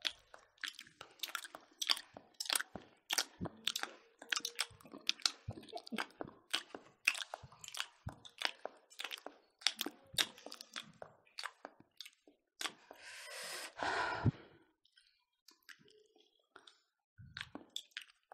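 Close-miked chewing and lip-smacking of people eating pork and rice by hand, in a quick irregular run of wet clicks and smacks that thins out after about twelve seconds. About two-thirds of the way through comes one longer breathy hiss, lasting about a second and a half.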